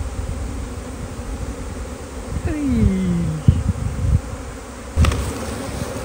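A dense swarm of honey bees flying around an apiary hive, a steady many-winged buzzing hum. A brief falling tone cuts across it about halfway through.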